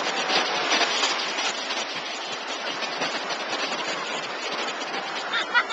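Ocean surf washing in over shallow water at the shoreline, a steady rushing hiss of breaking whitewater.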